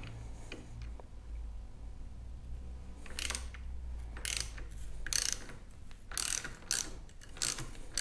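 Hand ratchet with a 3/16-inch bit clicking in short bursts, about one stroke a second, as it backs out the bolts of a motorcycle clutch perch mount. The clicking starts about three seconds in.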